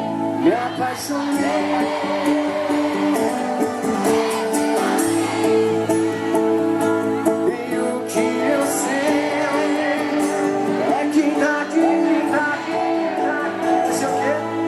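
Live sertanejo pop band music played loud through a concert PA, with sustained keyboard chords and singing over them.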